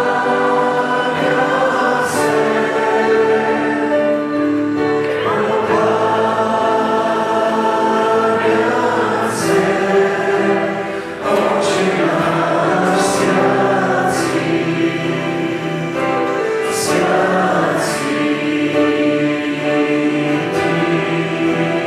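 Church worship band performing a song: several men and women singing together over acoustic guitars and keyboard.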